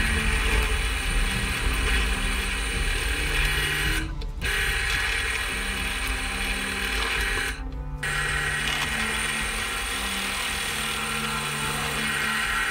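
Drill press running with its twist bit cutting through a wooden knife-handle scale clamped to the steel tang: a steady grinding, cutting noise. It breaks off briefly twice, about 4 s and 8 s in.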